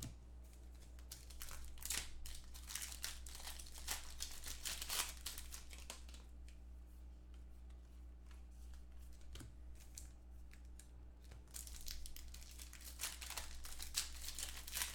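Foil wrappers of 2015 Contenders football card packs crinkling and tearing as they are ripped open by hand, in two spells of crackling with quieter card handling between them. A steady low electrical hum underneath.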